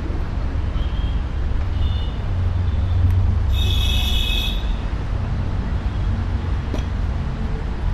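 Steady low rumble of motor vehicles, with a brief high squeal about halfway through.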